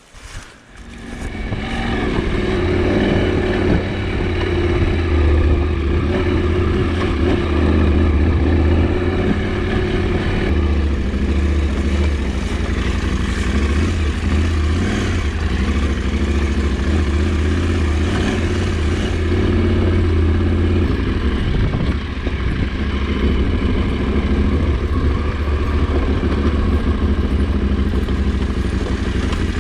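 KTM 790 Adventure's parallel-twin engine running under way. It builds up over the first two seconds, then holds a steady note with small rises and dips in throttle.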